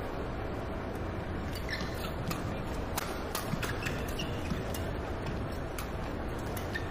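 Badminton rally: sharp clicks of rackets striking the shuttlecock, with brief squeaks of shoes on the court, over steady arena crowd noise. The strikes come thick and fast from about a second and a half in.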